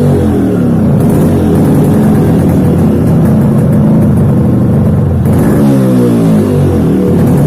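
Yamaha RX 135's single-cylinder two-stroke engine running and being revved, its pitch sweeping about six seconds in, freshly fitted with an RX King CDI.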